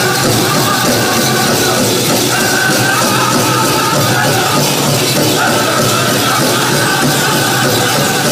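A powwow drum group drumming and singing: a big drum beaten steadily under high, wavering voices that sing in phrases, loud and full. It is the song for the Prairie Chicken dance.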